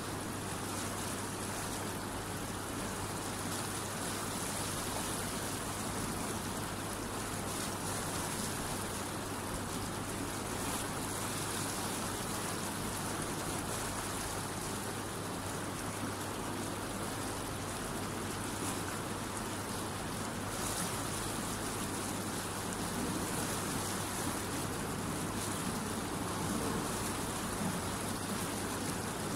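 Water rushing through the open sluice gates of a canal weir and churning in the rapids below: a steady, unbroken rush.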